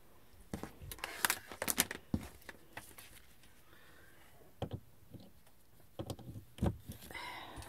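Scattered handling clicks and knocks as a small fan heater's cord and two-prong plug are moved and pushed into a wall outlet, the loudest click about six and a half seconds in.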